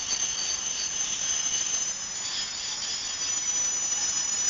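Freight train of tank-container wagons rolling past on the track, its wheels squealing in several steady high-pitched tones over a continuous rolling noise.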